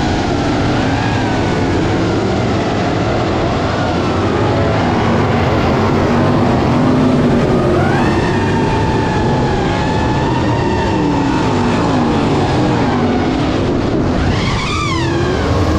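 FPV racing quadcopter's T-Motor Velox V2 motors and propellers whining, their pitch shifting as the throttle changes, over the engines of winged sprint cars racing. Near the end the pitch rises sharply and falls again as the drone punches the throttle and dives low.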